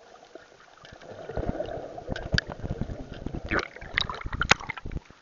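Water gurgling and splashing against a waterproof camera as it comes up from underwater into choppy sea. A faint underwater hiss for the first second or so gives way to louder churning water with many sharp splashes.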